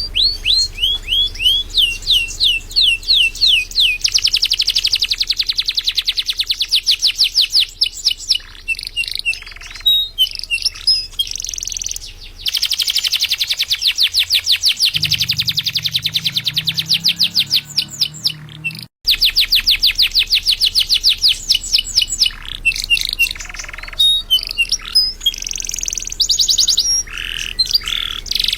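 Domestic canary singing continuously in long, rapid trills and rolls of repeated high notes, with a momentary break about two-thirds of the way through.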